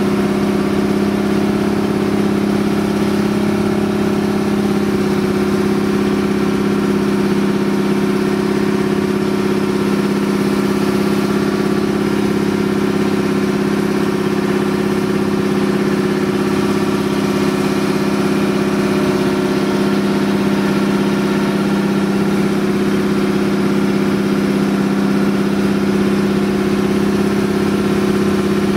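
Outrigger boat's engine running steadily under way, an unchanging drone, with water splashing and spraying off the outrigger float.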